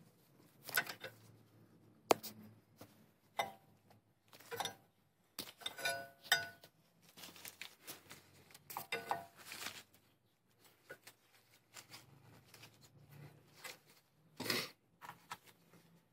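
Scattered metallic clicks and clinks, a few ringing briefly, with a louder rattle near the end: metal brake caliper hardware and tools being handled during reassembly.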